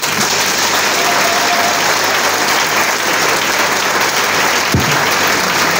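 Audience applauding, a large crowd clapping that starts abruptly and holds steady.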